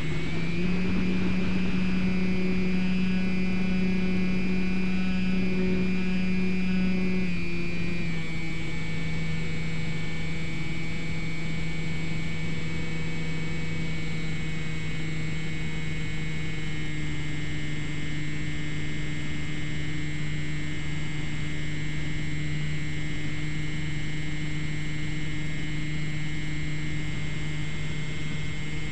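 Electric motor and propeller of a Slowstick model plane heard from on board in flight: a steady pitched drone that drops in pitch twice, about 7 seconds in and again around 17 seconds in, as the throttle is eased back. Hiss runs underneath.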